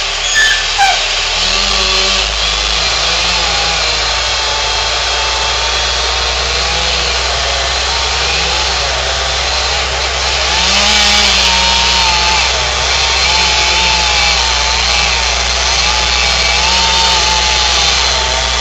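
Chainsaw cutting into the trunk of a dead-standing red oak to fell it, the engine running steadily under load with its pitch wavering through the cut. A steady low engine drone runs underneath.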